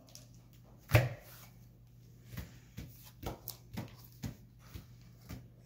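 Trading cards being handled and laid down on a tabletop: one sharp knock about a second in, then a run of light taps and flicks, about two a second.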